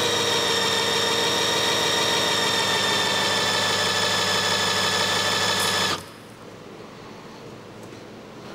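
Cordless drill spinning an engine oil pump, a steady whine with many even overtones as it pumps oil into an empty oil filter. It stops about six seconds in.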